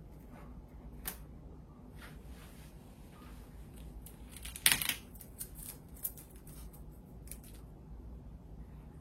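Small clicks and handling noises from unplugging the display cables from an iMac's logic board and freeing the screen, with one louder crackling snap about halfway through and a few lighter clicks around it.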